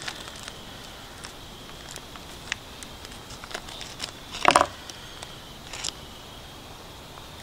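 Small knife cutting slices off a sausage on a wooden cutting board: scattered light clicks and taps, with one louder sound about halfway through.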